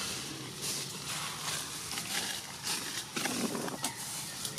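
Dry leaf litter rustling and crackling in irregular bursts as monkeys shift about on it, with a louder rustle about three seconds in.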